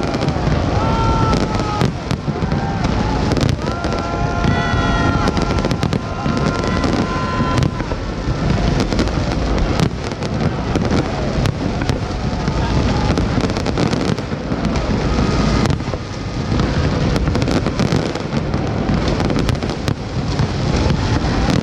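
Large fireworks display: a dense, continuous barrage of bangs and crackling bursts, with high held whistles sounding over it for a few seconds about four seconds in and again near the end.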